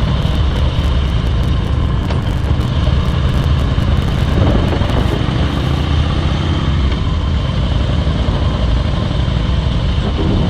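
Harley-Davidson motorcycle's V-twin engine running steadily, a low, even engine sound that holds its level throughout.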